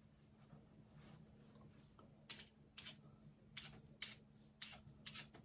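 Daikon radish being peeled: a run of short, crisp scraping strokes, about two a second, starting about two seconds in.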